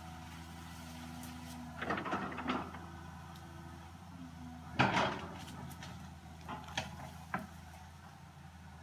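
Cat 315C hydraulic excavator's diesel engine running steadily, with cracking and knocking as it works through brush and small trees: a burst of cracks about two seconds in, the loudest sharp crack about five seconds in, then a few short clicks.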